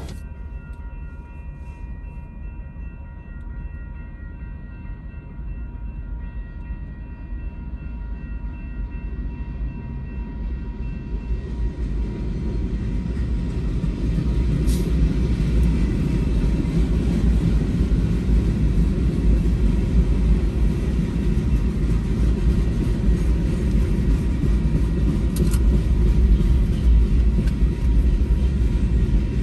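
Union Pacific local freight train's cars rolling past on the track, a low rumble that swells from about twelve seconds in and stays loud. Two short, sharp high sounds come from the wheels, one in the middle and one near the end.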